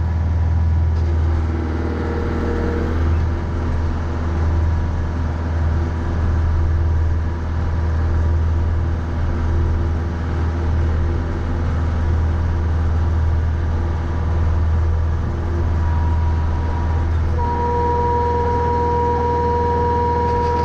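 Mahindra 3550 50-horsepower diesel tractor engine running steadily with a deep rumble while pushing snow with a front blade. A steady high whine comes in near the end.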